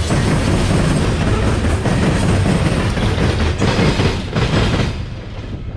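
Loaded coal hopper cars of a freight train rolling past, a steady rumble of steel wheels on rail with a few sharp clacks over rail joints. The sound drops away about five seconds in as the last car passes.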